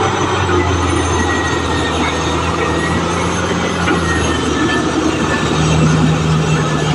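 Caterpillar D6R XL crawler bulldozer working, its diesel engine running steadily with a thin high squeal from the steel tracks. The engine comes up a little toward the end.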